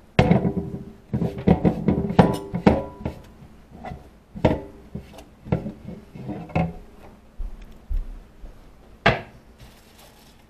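Kitchen clatter: a run of clanks and knocks of dishes, pans and utensils, each strong hit ringing briefly. The knocks come thick and fast at first, then more spaced out, with a last sharp knock near the end.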